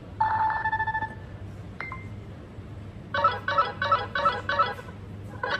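Electronic tones: a held two-note beep near the start, a short click with a brief tone just before two seconds in, then a quick run of repeated blips, about three a second, from about three seconds in.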